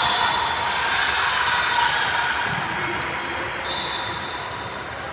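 Basketball game sounds in a gym: a ball bouncing on the court over a steady background din, with a brief high squeak, typical of a sneaker on the floor, about four seconds in.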